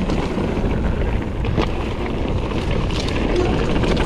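Kona Process 153 mountain bike riding fast down a dirt trail: steady tyre rumble and wind buffeting the microphone, with scattered clicks and knocks as the bike rattles over the ground.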